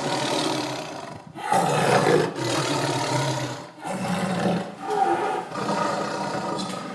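Tiger roaring in a series of rasping roars, each about a second long, with brief pauses between them.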